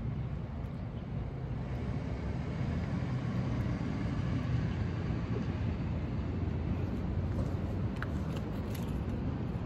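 Steady low outdoor rumble, with a few faint clicks near the end.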